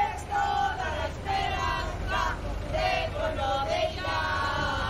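A small crowd of people singing together, their voices held on high notes that rise and fall.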